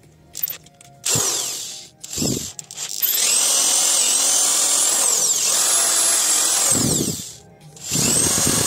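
Hand-held electric drill boring into the end of a metal handle held in locking pliers. It gives two short bursts, then runs steadily for about four seconds, its whine dipping now and then under load. It stops briefly and starts again near the end.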